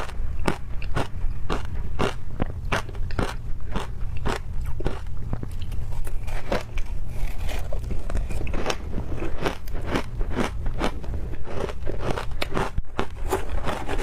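Someone chewing ice close to the microphone: sharp, repeated crunches about two or three a second as the ice is bitten and broken up, over a steady low hum.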